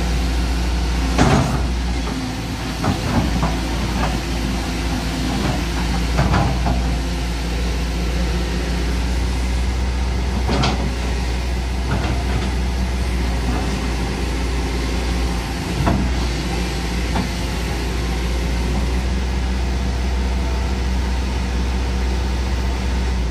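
Kobelco SK200 hydraulic excavator's diesel engine running steadily under work, with several sharp knocks and clanks from the bucket on the dirt and stones, most of them in the first half.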